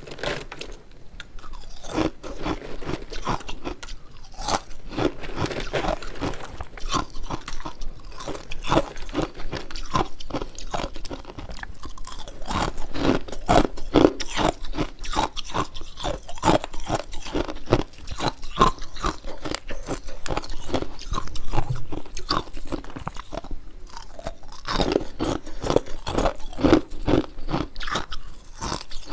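A person chewing ice formed from a humidifier, close to the microphone: a dense, continuous run of crisp crunches from repeated bites.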